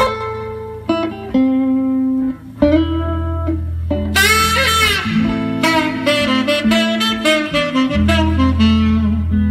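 Instrumental passage of a blues recording played back over a home stereo: pitched lead notes over a steady bass line, with one long held note about four seconds in followed by a run of short notes.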